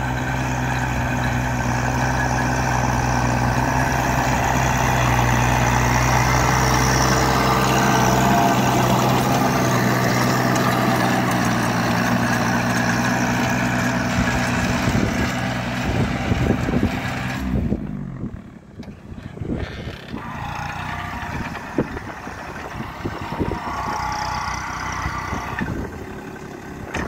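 Kubota B2741S compact tractor's diesel engine running steadily under load, driving a rotary tiller through the soil. About 18 seconds in the sound drops away and thins as the tractor moves off, with gusts of wind on the microphone, then builds a little as it comes back.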